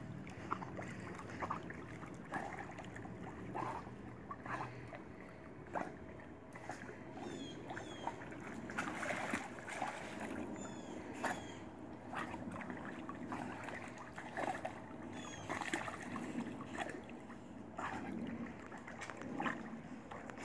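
A Rottweiler dog-paddling through pool water: soft, irregular splashing and lapping as its legs stroke under the surface.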